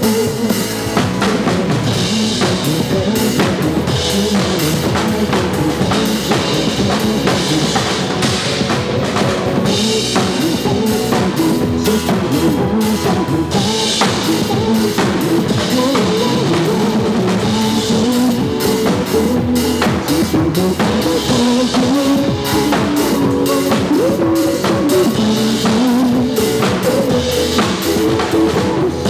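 Drum kit played steadily along with a recorded pop backing track: kick drum, snare and cymbals hitting in a regular beat over the song's music.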